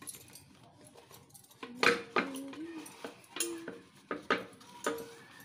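Hands lining a pressure cooker with banana leaves: several sharp knocks and clinks against the metal pot in the second half, each ringing briefly.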